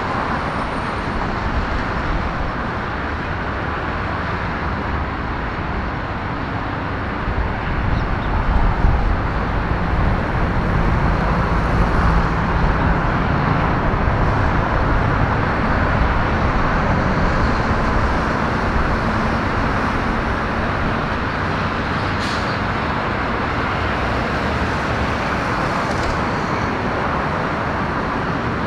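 Jet airliner engines heard from a distance across the airfield, a steady roar that swells about eight seconds in and stays a little louder.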